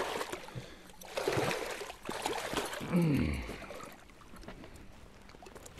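A big muskellunge thrashing in a landing net at the water's surface, splashing in several bursts over the first three seconds, then quieter water sloshing.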